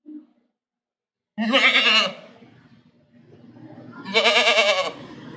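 Goat bleating twice, about two and a half seconds apart, each bleat under a second long with a quavering pitch.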